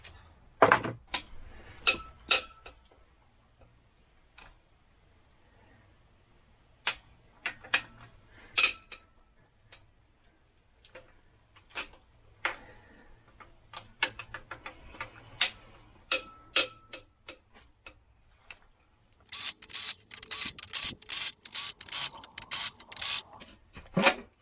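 Metal tools and engine parts clinking and knocking during an engine teardown: scattered sharp clicks, some ringing briefly, then a quick run of clicks near the end.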